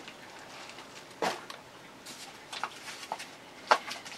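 A few short, sharp knocks and clicks from objects being handled: the loudest about a second in, lighter ones around two and a half and three seconds, and another sharp one near the end.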